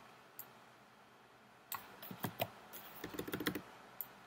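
Faint clicking of a computer keyboard and mouse: a single click, then a quick run of key presses and clicks about two seconds in.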